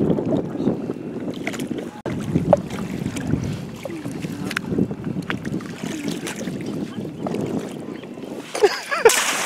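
Jet ski engine idling with an uneven low rumble, wind buffeting the microphone. Right at the end a brief cry and the start of a splash, as a rider goes into the water.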